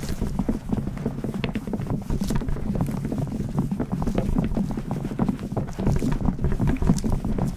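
A mass of tennis balls jostling against each other: a dense, continuous stream of soft irregular taps and rubbing over a low rumble, as a badminton shuttlecock pushes through the pile.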